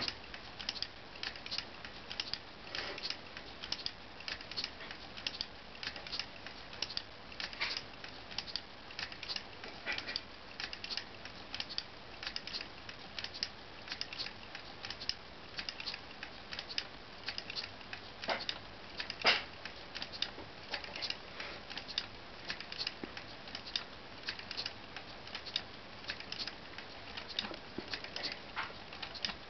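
LEGO two-cylinder pneumatic engine running, its plastic cylinders, valves and spinning flywheel making an uneven patter of light clicks, a few each second. One click about two-thirds of the way through is louder than the rest.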